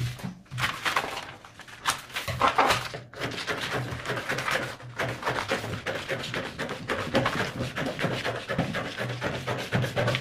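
Scissors cutting through a paper sewing pattern, with crisp irregular snips and paper rustling and crackling as the sheet is handled.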